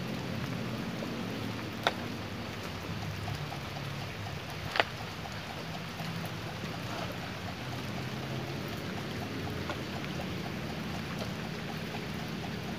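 Steady rain falling, with two sharp knocks about two and five seconds in.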